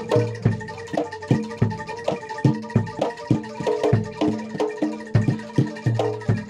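Gamelan-style music for a kuda lumping dance: struck metal keyed instruments play a fast, even run of notes over low drum strokes.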